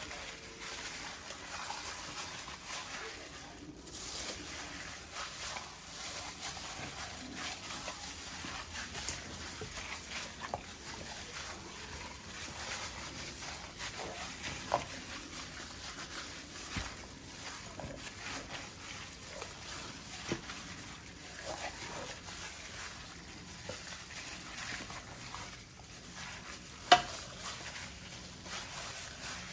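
Wet squelching of hands mixing and massaging raw pork in a sticky barbecue marinade, with scattered small clicks and one sharp knock near the end.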